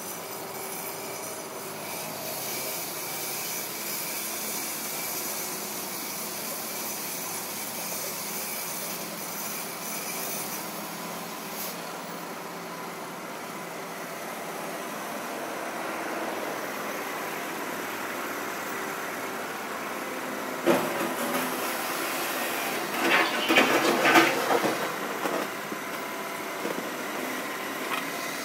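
Compact front-loader tractor's engine running steadily, with a sharp knock about 21 seconds in and a short run of loud knocks around 23 to 25 seconds in.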